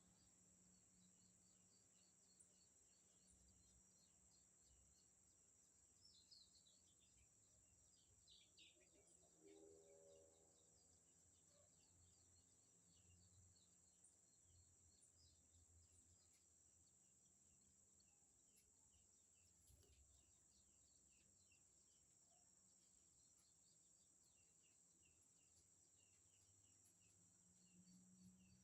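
Very faint outdoor ambience: a steady high insect drone with scattered small chirps, and a short run of falling bird chirps about six to nine seconds in.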